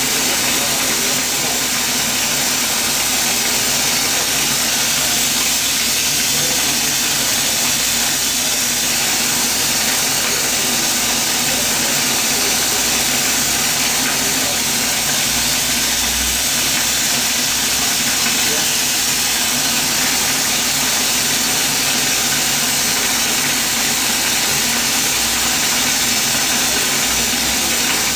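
Glassblower's bench gas torch burning with a steady, even hiss.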